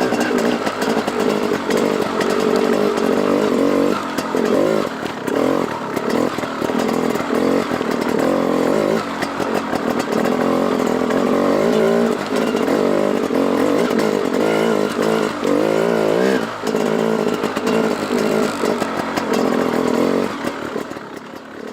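Dirt bike engine running continuously, with the revs rising and falling as it climbs.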